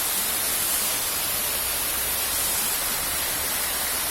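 Steady rushing and hiss of a tiered waterfall's water falling over rocks, even and unbroken.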